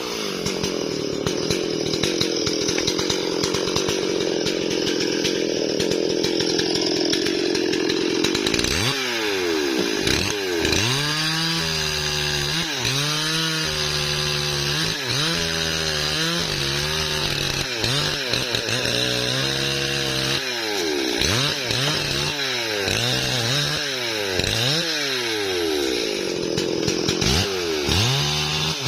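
Stihl MS440 two-stroke chainsaw running at high speed, held steady for about the first eight seconds, then rising and falling again and again.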